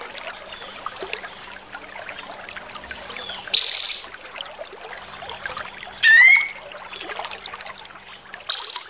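Kapas tembak bulbul singing its rough masteran song: three short, loud phrases of quickly rising slurred notes, about two and a half seconds apart, over a steady background hiss.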